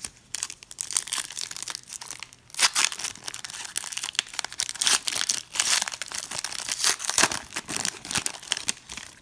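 Plastic wrapper of a trading card pack crinkling and tearing as it is handled and opened.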